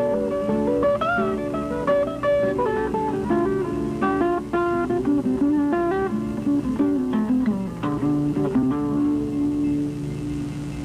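Background guitar music: plucked notes in a flowing melody with a few bent notes, settling onto a held chord near the end.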